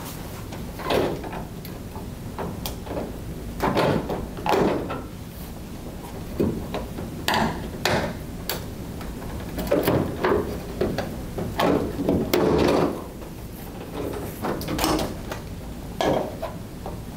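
Plastic push clips on a Dodge Ram's fan shroud cover being pried out with a flathead screwdriver: a string of irregular pops, clicks and knocks. Near the end the loose plastic cover is lifted off.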